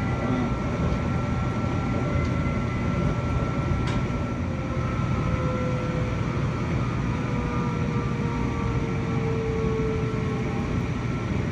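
Denver RTD light rail train running, heard from inside the car: a steady rumble of wheels on track with a faint whine that slowly falls in pitch in the second half, and one brief click about four seconds in.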